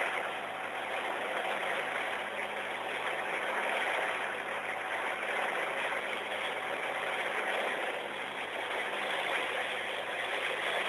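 Tamar-class lifeboat's twin Caterpillar C18 diesel engines running steadily under way, under a loud, steady rush of water from the churning stern wake.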